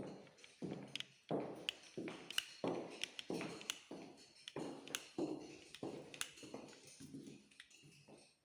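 Footsteps on a hard floor, a steady walking run of knocks with sharp clicks, about two to three a second.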